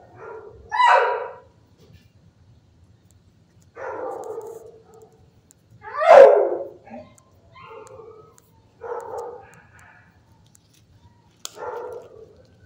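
Dogs barking in an animal shelter kennel block: single barks every second or two, the loudest about six seconds in, with a sharp click near the end.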